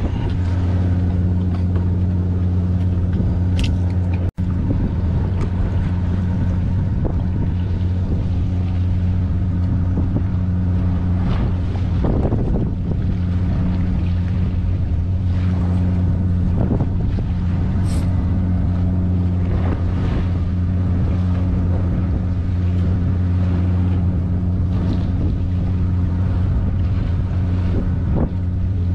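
Fishing boat's engine running steadily, a constant low hum, with occasional small knocks and clicks on deck.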